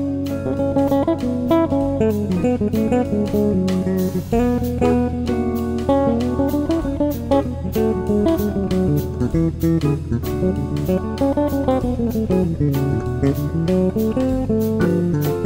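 Background music: a guitar-led instrumental with fast plucked notes over a bass line.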